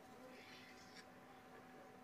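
Very faint scrape of a knife drawn through rolled semolina dough against a rolling board, ending in a light tick about a second in, over a faint steady hum.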